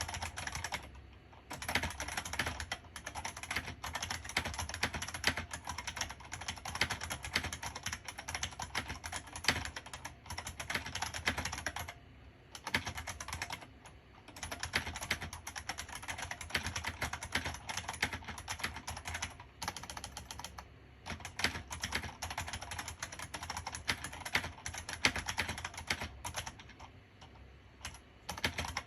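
Typing on an IBM Model M60, a 60% Model M keyboard with buckling-spring switches: steady runs of fast key clicks, broken by a few short pauses.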